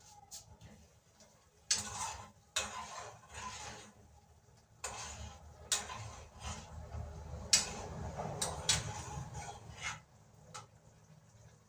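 Pots, pans and lids clattering on a gas stove top: a string of irregular sharp metal clanks and scrapes as cookware is moved and handled.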